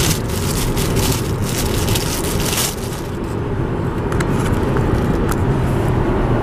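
Car cabin road noise while driving, a steady low rumble. Paper napkin rustles during the first couple of seconds as a Timbit is unwrapped.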